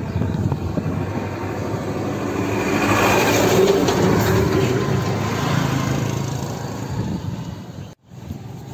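Passenger vehicle running along the road, heard from inside its open-windowed cabin: steady engine and road noise with rushing air, which grows louder through the middle. The sound drops out briefly near the end.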